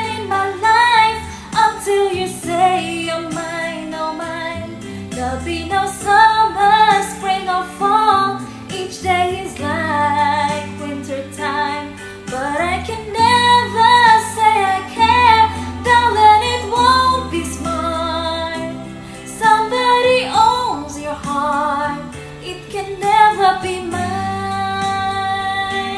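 A female voice singing a slow ballad over a backing track with bass and a light beat, the melody bending with vibrato and ending on a long held note.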